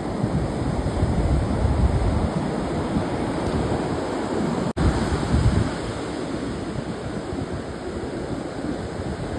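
Rough sea surf breaking on the shore, with wind buffeting the microphone in gusts. The sound cuts out for an instant about halfway through.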